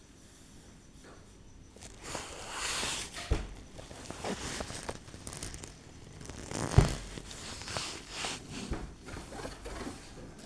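Rustling and handling noises, starting about two seconds in, with two sharper knocks along the way.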